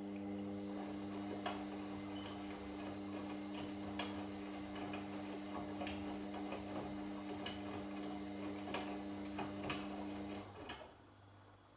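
Washing machine running a wash: the motor hums steadily as the drum turns, with irregular clicks and knocks from inside the drum. The motor stops a little before the end.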